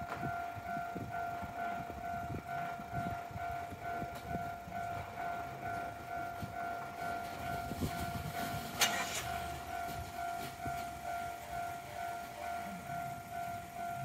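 Japanese railway level-crossing warning bell ringing: an electronic ding repeating rapidly and steadily while the crossing is closed. An irregular low rumble runs underneath, and there is a single sharp clank about nine seconds in.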